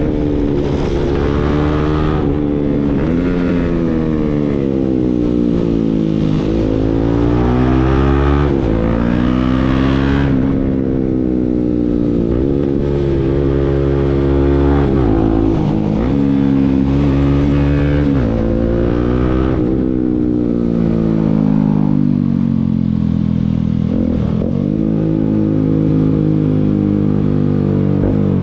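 Motorcycle engine breathing through an aftermarket Akrapovic exhaust, revved repeatedly. Its pitch climbs and drops back every two to four seconds.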